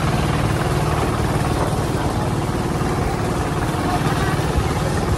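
Hand tractor's engine running steadily as it pulls a loaded trailer along a dirt track.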